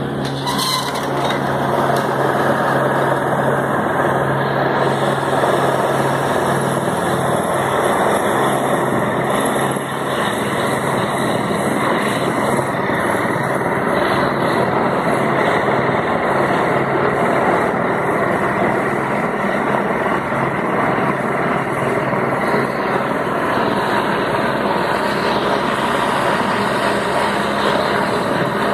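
A news helicopter running steadily overhead: a constant loud rotor-and-turbine noise.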